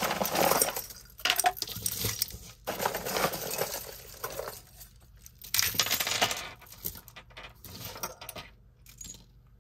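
A heap of costume jewelry (metal chains, bead strands and earrings) clinking and rattling as it is tipped out onto a table mat and stirred by hand. It comes in several bursts, the biggest in the first few seconds and another about six seconds in, with smaller rattles after.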